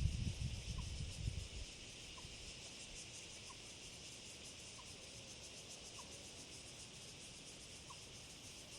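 Steady shrill chorus of insects in a rural forest, with a short note repeating about every second and a quarter. A low rumble, like wind on the microphone, fades out about a second and a half in.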